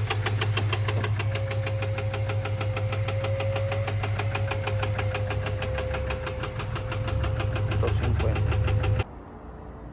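Ford 7.3 L gasoline V8 running with a loud, rapid, even ticking knock from the valvetrain, the sign of a failed hydraulic lifter and loose rocker arm, with possible camshaft damage. The sound cuts off abruptly about nine seconds in.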